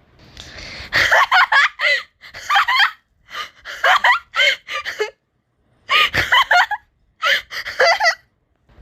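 A person laughing hard in about five bursts, each a quick run of pitched ha-sounds. There is a breathy gasp before the first burst and a short pause midway.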